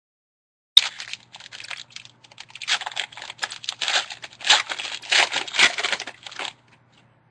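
A trading-card pack's wrapper being torn open and crinkled, with a sharp rip about a second in followed by several seconds of irregular crackling.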